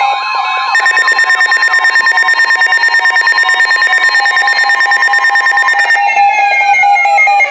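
Layered electronic emergency alert tones: a steady two-tone signal like the EAS attention tone under a fast pulsing alarm of about nine beats a second. Near the end the pulsing stops and siren-like tones glide downward.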